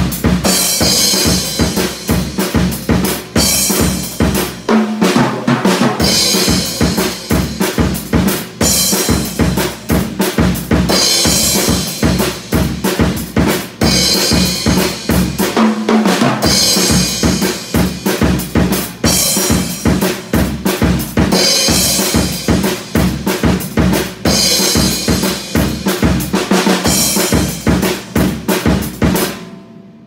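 Tama acoustic drum kit with Paiste PST cymbals played in a steady pop groove: kick, snare and crash cymbal hits about every two seconds. The playing stops shortly before the end, leaving a brief ring-out.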